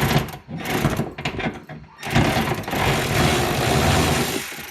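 A handheld power tool, such as a cordless drill or driver, working on the car's fasteners: its motor runs in a couple of short bursts, then in one steady run of about two and a half seconds.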